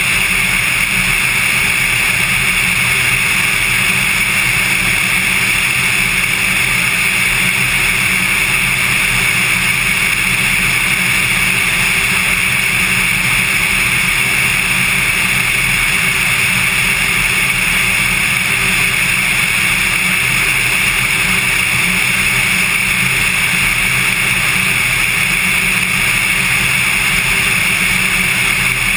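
Cessna 182 light aircraft in steady flight: its piston engine and propeller make a constant drone under a loud, even hiss of rushing air.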